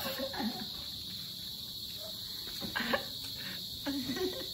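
Crickets trilling steadily, with a couple of short laughs.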